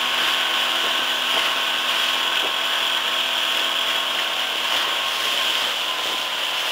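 Outboard motor running steadily at cruising speed, heard from on board a small open boat, with the rush of water and wind from the wake over a steady engine whine.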